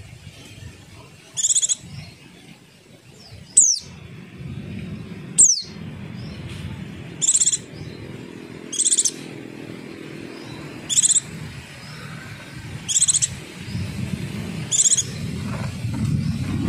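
Pleci (white-eye) calling: short, high, buzzy call notes repeated about every two seconds, with two quick downward-sliding whistles between the second and third notes.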